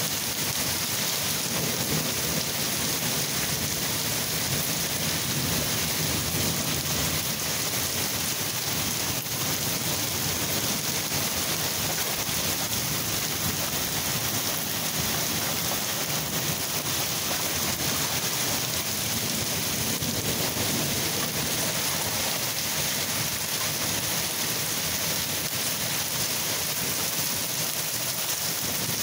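Steady rain falling, with rolling thunder low in the background.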